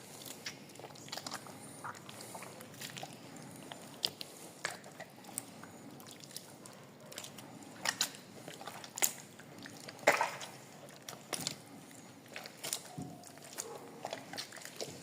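Wet squelching and irregular sharp clicks of hands pulling the viscera out of a fresh octopus, the loudest about ten seconds in.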